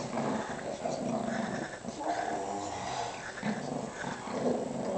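Small dogs growling in play while tugging on a toy between them, a near-continuous run of low growls with short breaks.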